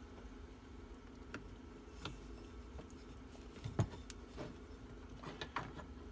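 Scattered light taps and clicks of hands pressing silicone rubber sheets into a metal mold frame, with a sharper knock a little under four seconds in, over a steady low hum.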